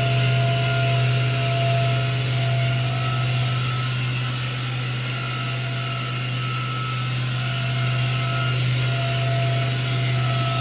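Fadal VMC5020A vertical machining center's spindle running steadily at 7,500 rpm, commanded forward (M3), a steady hum with fainter higher tones above it.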